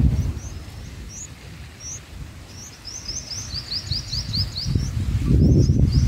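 Bulbul nestlings begging for food with rapid, high, thin chirps, several a second, thickest in a run a few seconds in. A low rushing rumble fades out at the start and comes back about five seconds in.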